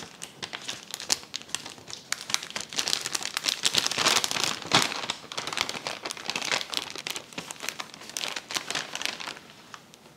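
Kraft-paper bread bag crinkling and rustling as it is handled and opened by hand, loudest around the middle and stopping shortly before the end.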